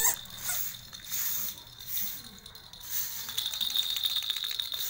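Plastic castor wheels of a baby walker rattling and clicking over rough concrete as a toddler moves it, ending in a run of rapid clicking over the last second and a half.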